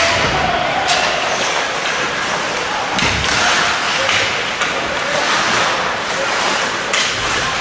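Ice hockey play heard in the rink: sharp cracks and knocks of puck, sticks and boards over steady arena noise. The loudest crack comes at the start, with more knocks about a second in and near the end, and a low thud against the boards about three seconds in.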